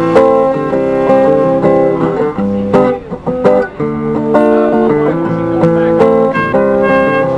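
Instrumental music led by a guitar, playing a run of chords with notes changing about every half second.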